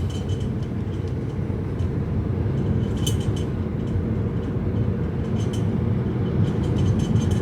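A car's engine and road noise heard from inside the cabin while driving slowly: a steady low rumble, with a few faint ticks and clicks about three seconds in and again near the end.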